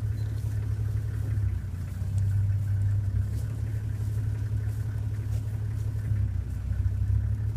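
Safari vehicle's engine running steadily at low revs: a continuous low rumble.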